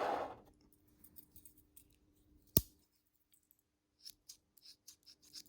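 Small metal clicks from a Leatherman Micra multi-tool being opened and worked. There is one sharp snap about two and a half seconds in, then a run of quick light clicks near the end as its spring-loaded scissors are opened and closed.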